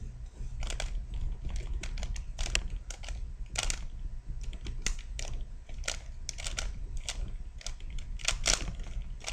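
Plastic Rubik's cube being handled and turned, giving irregular sharp clicks and clacks, some in quick clusters, over a steady low hum.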